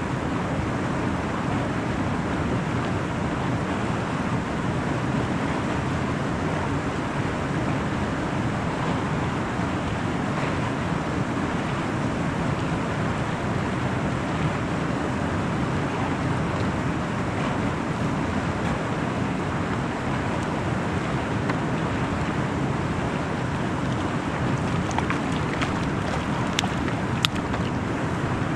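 Steady rushing wind noise over the microphone at open water, with a few sharp clicks near the end.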